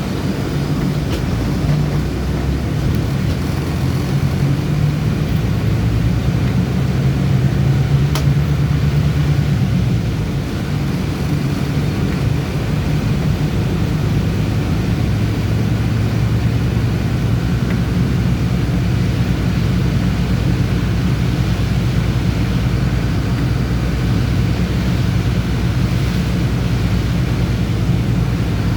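Bus engine running as the bus drives, a steady low drone over road noise that drops in pitch about ten seconds in.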